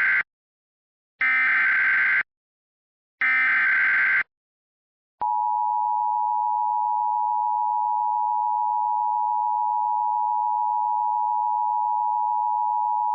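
Emergency Alert System SAME header: three roughly one-second bursts of warbling digital data tones, the first already ending as it begins. After a pause, the EAS attention signal, a steady two-tone beep of 853 and 960 Hz held for about eight seconds, announcing an emergency message.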